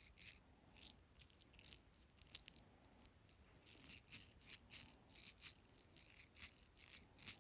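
Faint, irregular clicking and rattling of a small fidget toy being handled in the hand, two or three sharp clicks a second.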